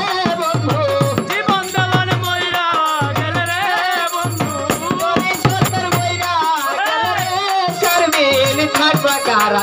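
Live Bengali folk-song accompaniment between sung lines: a wavering melody over a drum beating about two strokes a second, with brief breaks in the beat.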